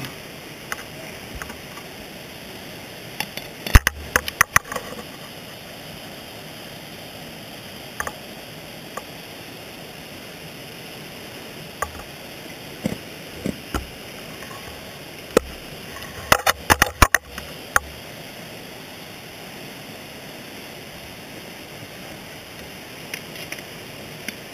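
Ice axe picks scraping and knocking on rock while dry tooling, picked up through the axe the camera is mounted on. The sharp clicks come in two clusters, about four seconds in and again around sixteen to seventeen seconds, with scattered single ticks between, over a steady hiss.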